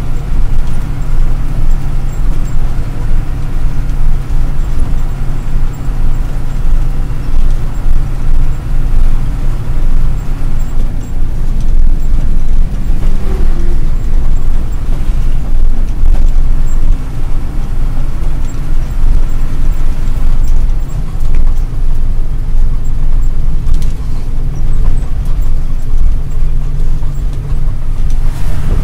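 Ashok Leyland 1613 truck's diesel engine running under way, heard inside the cab as a loud, steady low drone mixed with road noise. Its tone shifts about ten seconds in and shifts back near the end.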